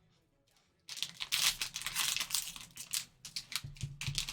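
Plastic card-pack wrapper crinkling and tearing as the pack is ripped open, starting about a second in, with a few soft handling thumps near the end.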